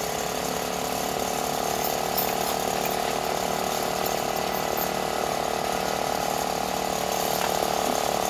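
Engine-driven hydraulic power unit for rescue tools running steadily, a fast mechanical chatter under an even-pitched hum.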